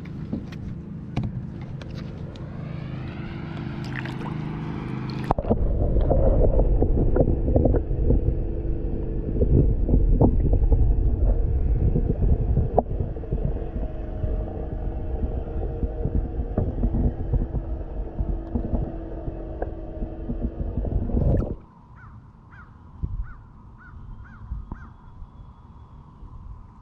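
Boat motor speeding up, its pitch rising, then running at speed over the water with a heavy rumble of wind and hull noise. It cuts off suddenly a little past twenty seconds in, leaving a faint steady whine.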